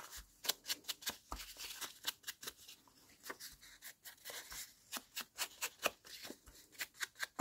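Small foam ink blending tool dabbed on an ink pad and rubbed along the edge of a book-page paper banner to distress it, the paper crinkling as it is handled: soft, irregular taps and rustles several times a second.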